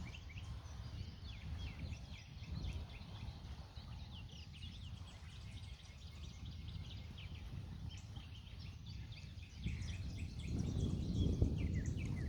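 Wind buffeting the microphone, gusting harder about ten seconds in, under many short, high bird chirps.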